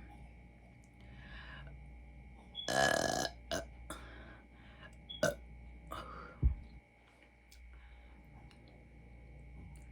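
A woman belching from drinking soda: one long, loud burp about three seconds in, followed by a few short clicks and a sharp low thump about six seconds in.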